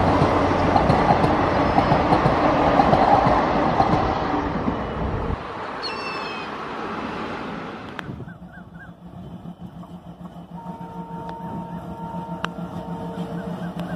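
Passenger train rushing past at speed, its wheels clattering over the rails. It cuts off about five seconds in. From about ten seconds in, a diesel locomotive approaches, its engine drone slowly growing louder.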